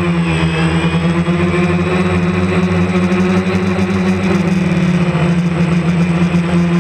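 DJI Phantom quadcopter's motors and propellers buzzing steadily in flight, with small shifts in pitch as it manoeuvres low over the field.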